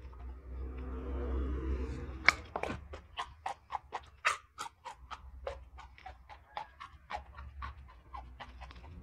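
Raw jengkol (dog fruit) seeds being bitten and chewed close to the microphone: a sharp crack a little over two seconds in, then a run of crisp crunches, several a second, thinning out near the end.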